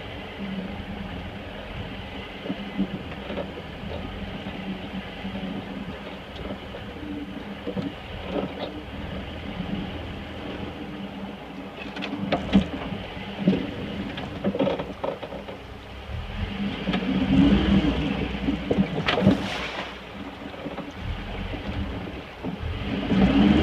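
A lifted 1985 Toyota pickup's 22R four-cylinder engine running at low revs, with scattered knocks and clunks midway. The engine revs up and swells in loudness twice, once past the middle and again at the end.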